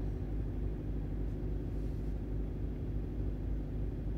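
VW Passat TDI's 2.0-litre four-cylinder diesel running at a steady idle during a forced DPF regeneration, a low, even drone.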